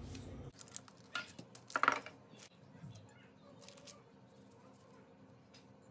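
A few light clicks, taps and rustles of a plastic spatula against parchment paper and a baking tray as soft cut-out dough rounds are lifted and set down. The loudest comes about two seconds in, and it is quiet after about four seconds.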